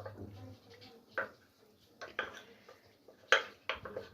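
A spoon clinking against a small bowl in several sharp, irregular taps, the loudest a little past three seconds in, as starch and water are stirred together into a thickening slurry for soup.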